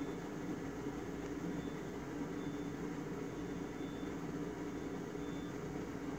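The electric blower fan of a 2007 Gemmy airblown inflatable running with a steady hum, keeping the inflatable inflated.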